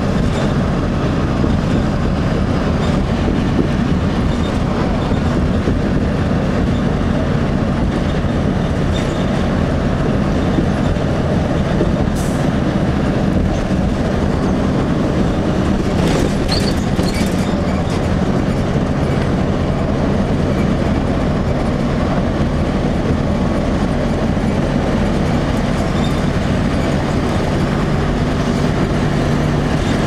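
Steady drone of a 2002 Blue Bird CS transit bus heard from inside the cabin while cruising at highway speed: its Cummins ISC diesel engine and Allison automatic transmission humming evenly under road and tyre noise. A couple of brief faint high squeaks come about halfway through.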